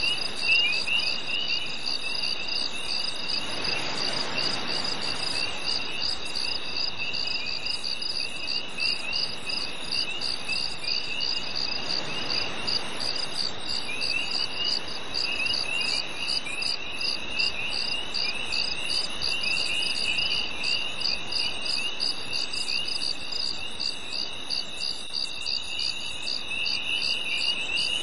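Crickets chirping on a summer night: one chirps in a steady, evenly spaced pulse, and a lower-pitched insect trills more roughly alongside, over a soft background hiss.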